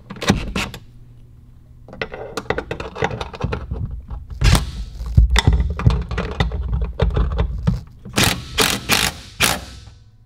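Tools tightening the bolts of a steel fender brace: a knock, then quick metal clicking and rattling with a low rumble under it, and four short, loud, sharp sounds near the end.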